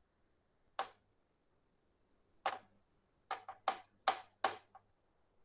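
Scattered sharp clicks and taps, like computer keys or a mouse: one about a second in, then a quick run of about six near the middle and toward the end, with near silence between them.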